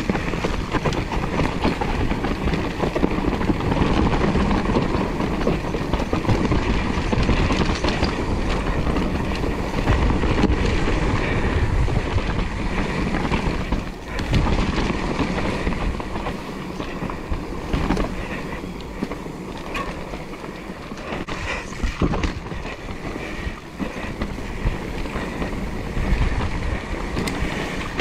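Mountain bike riding down a dirt forest trail: tyres rolling over dirt and dry leaves with the bike rattling, plus a few sharp knocks from bumps in the second half. Louder and busier for the first half, easing somewhat after that.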